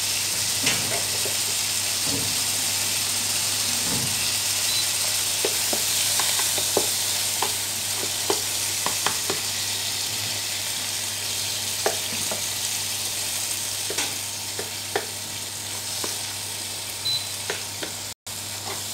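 Eggs and mustard greens frying in oil in a wok, a steady sizzle with scattered taps and scrapes of a wooden spatula against the pan. The sound briefly cuts out near the end.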